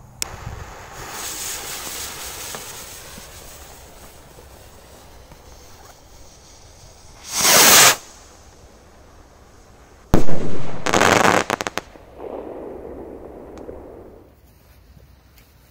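Vzhik stick firework rocket: a fizzing hiss as it burns, then about seven seconds in a short loud whoosh as it launches. About three seconds later a sharp bang, then a rapid crackling effect for over a second, followed by a fainter hiss.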